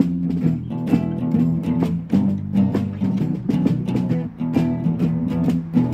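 Live acoustic music: chords strummed on acoustic guitar in a steady rhythm, in an instrumental passage with no singing.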